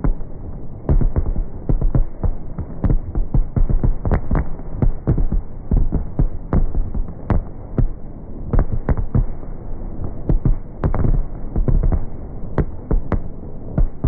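Fireworks display: a dense, unbroken barrage of aerial shell bursts, with loud booms following one another several times a second.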